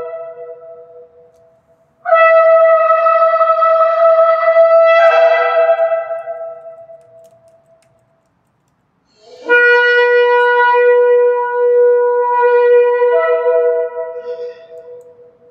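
A horn blown in long held blasts. The end of one blast fades away, then a blast starts about two seconds in and steps up in pitch partway through. After a short silence a third blast starts sharply, a second tone joins it near the end, and it fades out.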